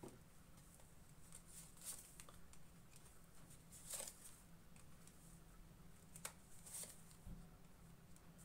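Near silence with a few faint, brief rustles and soft clicks of tarot cards being handled.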